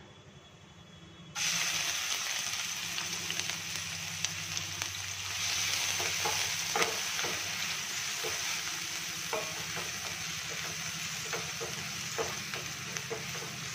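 Chopped onions sizzling in hot mustard oil in a kadhai. The sizzle starts suddenly about a second and a half in as the onions hit the oil, then runs steadily while they are stirred with a wooden spatula, with small scrapes and taps.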